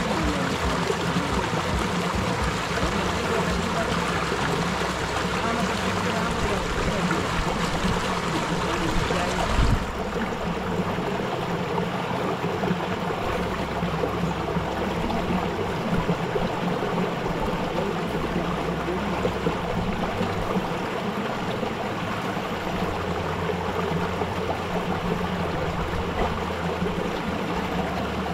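Shallow rocky stream running over stones, a steady rushing and trickling of water. About ten seconds in, its brightest hiss drops away and the sound turns duller.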